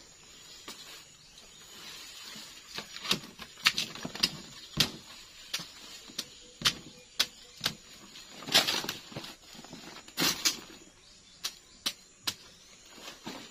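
Machete chopping into the base and corm of a giant swamp taro (palawan) plant to harvest it: irregular sharp chops, with the big leaves and stalks rustling a couple of times.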